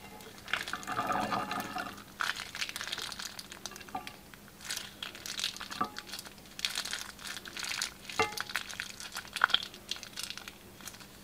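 Clear plastic piping bag crinkling in the hand as it is squeezed and worked in a glass dish of runny slime mixture, with wet sounds from the liquid. It comes as a string of irregular crackly bursts and clicks.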